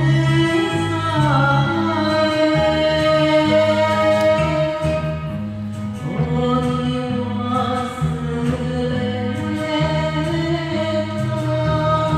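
Enka song sung over a backing track: a voice holding long, wavering melody notes above a steady, repeating bass line.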